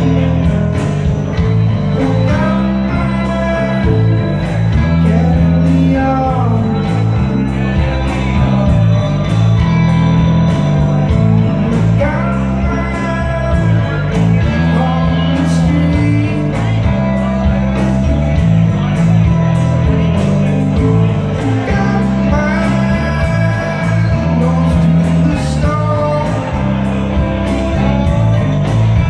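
Live rock band playing an amplified song on electric guitars, bass and drums, with singing, heard from within the audience in a large hall.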